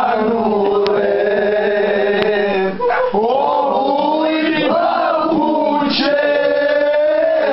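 A group of people singing loudly together, with men's voices to the fore, in long held notes and a short break about three seconds in.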